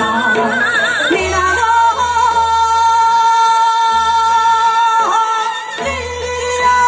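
A woman singing into a handheld microphone over amplified instrumental accompaniment, with heavy vibrato and ornamented turns. She holds one long note from about two seconds in to about five seconds in.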